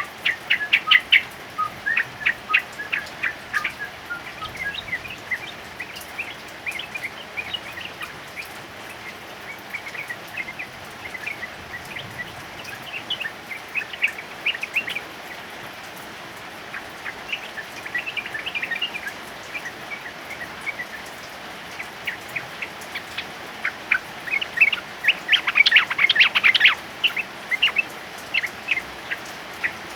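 Male yellow-vented bulbul singing in rapid runs of short, bubbling chirps over a steady hiss of rain. The densest, loudest run of song comes near the end.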